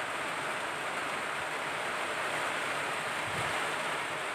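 Electric fan running on high: a steady rushing hiss.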